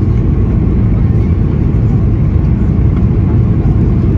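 Steady low rumble inside the cabin of a Boeing 737-800: its CFM56 jet engines and the airflow over the fuselage, heard from a window seat.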